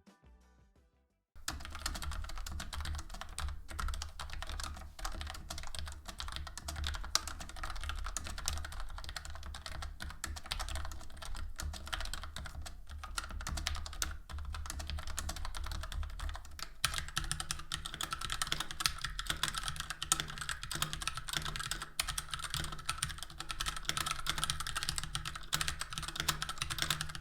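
Fast, continuous typing on mechanical keyboards in a key-sound test, with dense overlapping key clicks. About seventeen seconds in, the clicking turns brighter and sharper.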